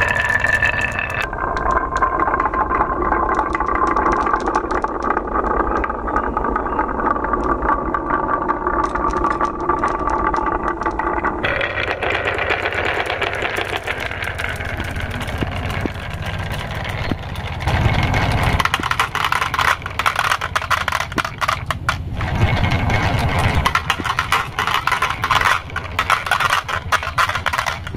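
Many small plastic marbles rolling down wooden and plastic marble-run tracks: a continuous rolling rumble with dense clacking as they knock against each other and the track walls. The sound changes about twelve seconds in, becoming sharper and clickier.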